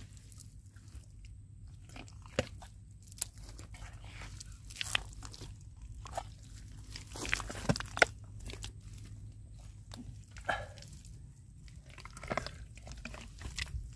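Bare hands digging out a crab burrow in wet mud: irregular wet squelches, sucking clicks and slaps as clumps of mud are pulled loose, loudest about eight seconds in, over a low steady rumble.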